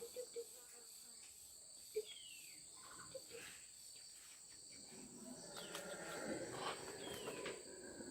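Rainforest insects droning, with two steady high-pitched tones. About five seconds in, a louder, rough sound builds up and keeps rising.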